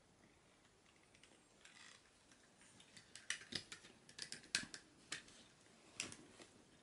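Plastic action-figure joints and parts clicking as the figure is posed and adjusted by hand. A quick, irregular run of sharp clicks starts about three seconds in and ends about a second before the end.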